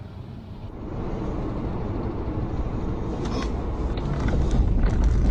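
Car driving on a snowy road, heard from inside the cabin: steady low road and engine noise growing louder, with creaks and knocks from the car's body from about three seconds in.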